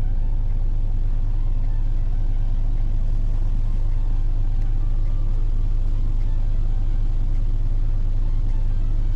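Steady low rumble inside a car's cabin while it drives along a rain-wet road: engine and tyre noise.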